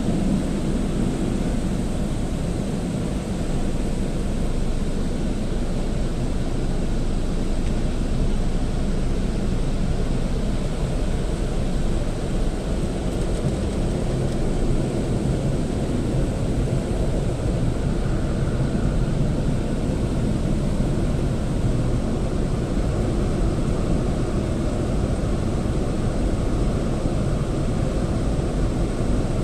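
Gas-station car wash machine running, a steady low rumble without breaks.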